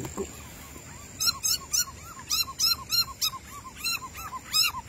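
A caught frog crying out in a rapid run of short squeaky calls, about three or four a second, starting about a second in.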